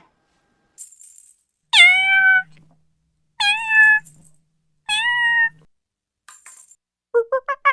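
Domestic cat meowing three times, each meow short, starting high and settling to a level pitch. Near the end a fast run of short repeated calls begins, about five a second.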